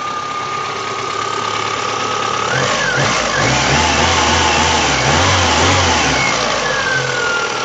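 VAZ 2109 engine running under the open bonnet, its revs raised about two and a half seconds in and easing back down near the end. There is no rattle or hum from the alternator, whose loose lower mounting bolt has just been tightened.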